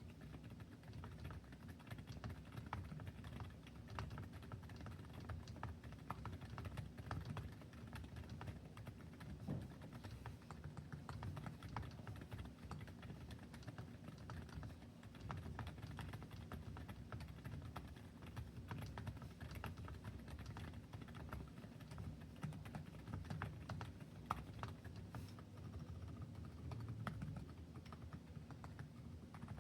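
Quiet, steady typing on a Keychron Q6 Max mechanical keyboard with TTC Silent Bluish White silent switches and Swagkeys Knight v2 keycaps, a few keystrokes standing out louder than the rest. The stabilized keys still make some noise, because their stabilizers top out on the upstroke before the switch's dampened housing does.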